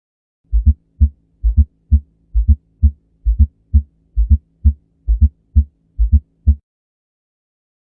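Recorded heart sounds in a gallop rhythm: three low thumps to each beat, two close together and one apart, repeating about 67 times a minute over a faint steady hum. The extra sound in each beat marks a gallop. The beats start about half a second in and stop a second and a half before the end.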